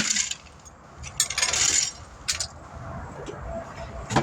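Metal hand tools clinking and scraping as they are handled: a few short scrapes and clinks, the longest about a second in, and a sharp click near the end.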